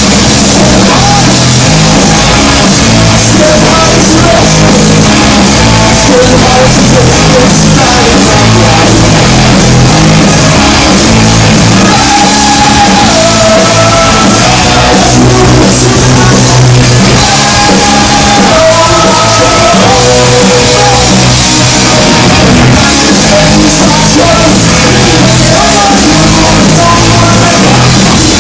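Live rock band with a lead singer playing a song, guitars, bass and drums with sung and shouted vocals, very loud throughout.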